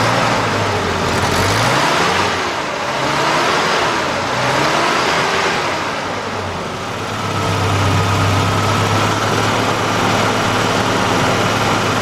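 Ford Ranger's 2.3-litre four-cylinder engine running just after it has been made to start, revved up and down a few times with the throttle, then settling to a steady idle about halfway through. It now runs on all four cylinders; the no-start was traced to a ground wire left unconnected.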